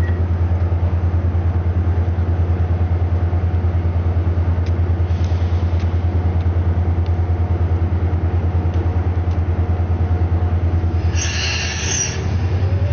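Diesel train engine idling with a deep, rapid, even throb. About eleven seconds in comes a hiss of air lasting about a second.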